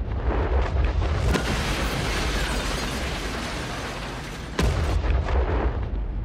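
Cinematic logo-intro sound effects: a swelling whoosh over a deep booming rumble, with a sharp impact hit just over a second in and a second hit about four and a half seconds in that brings the boom back up.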